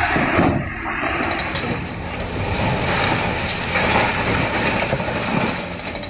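Heavy demolition machine's engine running as it pushes down a concrete wall, a steady mechanical noise mixed with breaking masonry.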